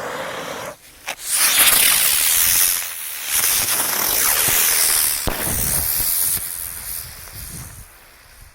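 Whiz Bang aerial spinner fireworks: a short fuse hiss, then the spinners whizzing into the air with a loud rushing hiss for about seven seconds, fading near the end. There is a sharp crack about five seconds in.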